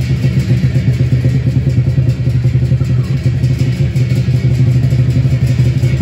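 Chinese lion dance drum beaten in rapid, even strokes, a loud continuous roll.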